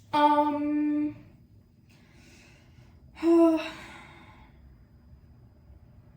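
A person's wordless vocal sounds: a held, steady voiced note lasting about a second, then a shorter, louder one about three seconds in.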